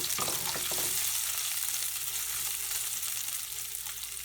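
Chopped garlic, ginger, green chillies and capsicum sizzling in hot oil as they are sautéed. A few quick scrapes of stirring come in the first second, then a steady sizzle.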